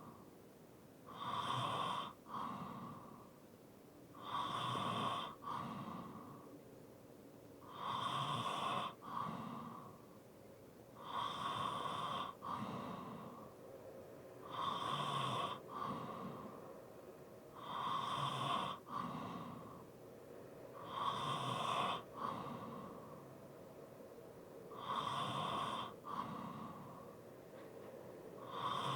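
A person breathing heavily with light snoring, in a slow, even rhythm of about one loud breath every three and a half seconds, each with a brief catch partway through and quieter breathing between.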